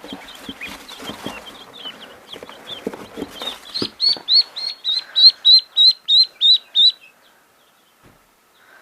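Baby poultry peeping over faint rustling and handling knocks. About four seconds in, one bird starts a run of loud, evenly spaced, downward-falling peeps, about three a second, which stops about seven seconds in.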